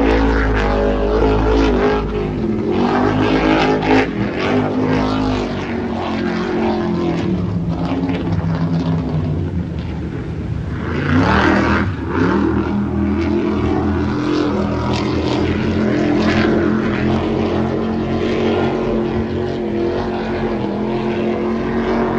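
Offshore racing powerboats' engines running at speed out on the water, a steady drone of several engine tones that shift in pitch, with a swoop and a brief rise in loudness about eleven seconds in as a boat goes by.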